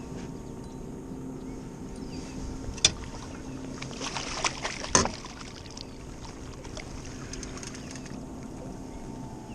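A boat motor running steadily with a low hum, with a few sharp clatters about three seconds in and again around five seconds in.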